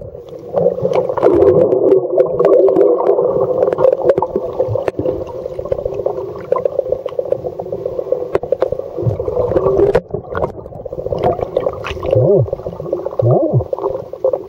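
Water sloshing and gurgling around a swimmer, dull and muffled, with the camera at the water line. Scattered sharp clicks and knocks run throughout, with a brief lull about ten seconds in.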